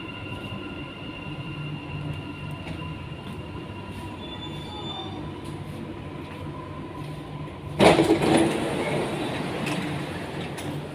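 Dubai Metro train running inside the car with a steady electric whine and rumble, with faint squeals about halfway through. Near the end a sudden loud rush of noise cuts in as the train's doors slide open, fading over the next two seconds.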